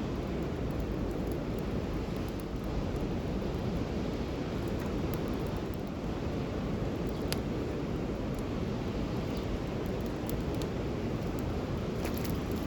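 Wood campfire burning, with a few sharp crackles and pops over a steady low rushing noise.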